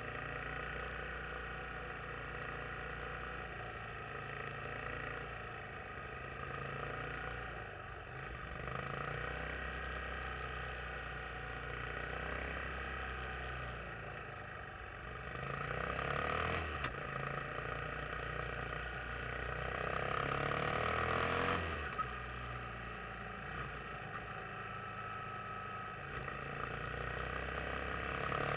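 Yamaha XT250 dual-sport motorcycle's single-cylinder four-stroke engine running at road speed. It grows louder and rises in pitch twice under acceleration, about halfway through and again about three-quarters of the way in.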